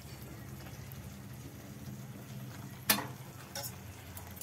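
Thick pea curry (ghugni) simmering faintly in a pan over a steady low hum, with a sharp metal clink about three seconds in and a lighter one just after, as a metal spatula knocks against the pan.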